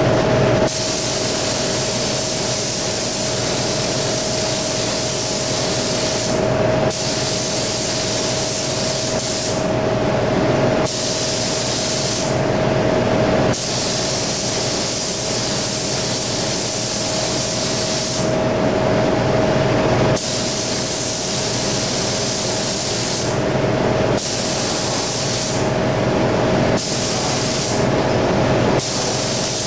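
Compressed-air paint spray gun hissing as it sprays, in stretches of one to five seconds with short breaks between as the trigger is pulled and released. A steady hum runs underneath.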